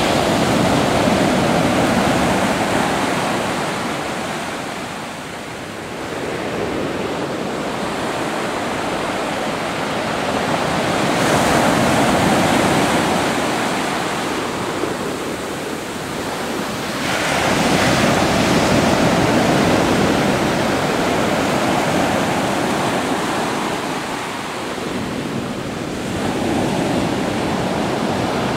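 Pacific Ocean surf washing in on the shore, swelling and easing as successive waves break and run up, about every five to six seconds. There is some wind noise on the microphone.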